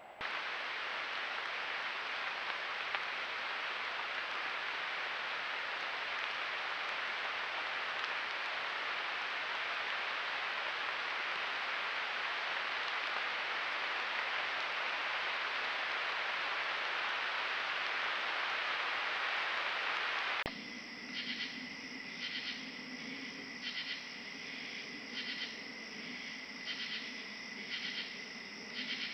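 A loud, steady, even hiss for about twenty seconds, which cuts off suddenly. A night insect chorus follows: a steady high trill with pulsing calls about once a second.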